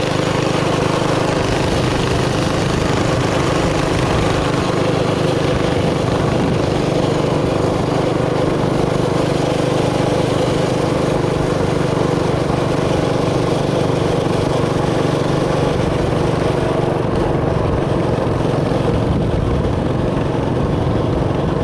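Mini bike's small engine running at a steady speed while being ridden, its pitch holding even throughout.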